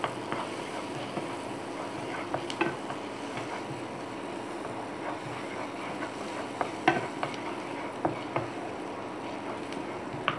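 Chopped garlic sizzling in hot melted butter in a frying pan as a spatula stirs it. A few sharp taps and scrapes of the spatula on the pan stand out, the loudest about seven seconds in.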